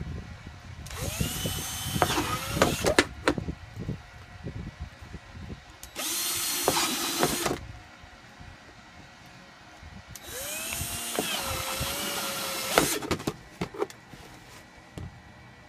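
Power drill boring holes in three bursts, the first and last about two seconds long and the middle one shorter. The motor whine rises as it spins up and dips as the bit cuts, with clicks and knocks in between.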